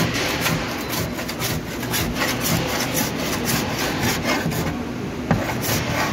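Hand-held body file rasping across a car door's sheet metal in quick back-and-forth strokes, about three a second. It is taking the top off the repaired spot of a pulled dent.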